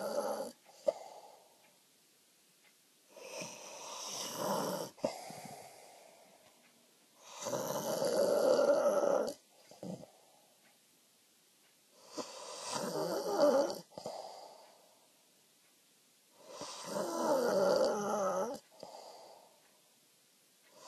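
A man snoring in deep sleep: four long snores about four to five seconds apart, each followed by a short, softer breath.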